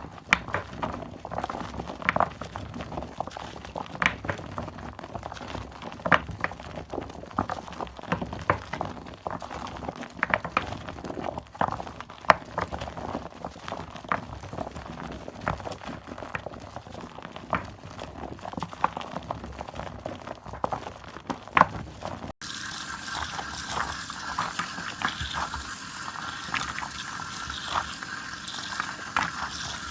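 Wet squelching of soaked soap foam being squeezed and worked by hand, a stream of short wet pops and crackles. About two-thirds of the way in the sound cuts to a steadier, hissier foamy crackle.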